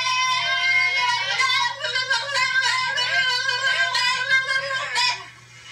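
Female voices singing held, wavering notes over music, stopping about five seconds in.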